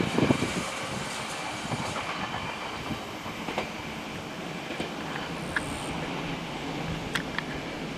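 A train running past on the Sanyō Main Line, its wheels clattering over the rail joints. A few heavy thumps come right at the start, then a steady rumble with a few brief high squeals from the wheels.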